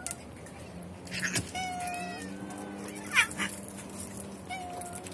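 Cats meowing: several short calls, with one sudden louder sound about three seconds in.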